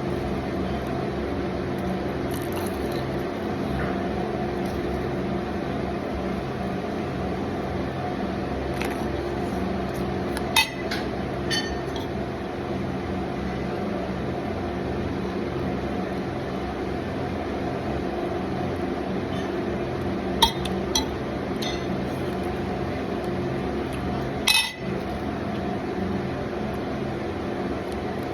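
A steady appliance-like hum with several fixed tones, over which tableware clinks sharply a few times: a pair a little before halfway, another pair about two-thirds of the way in, and the loudest clink shortly after.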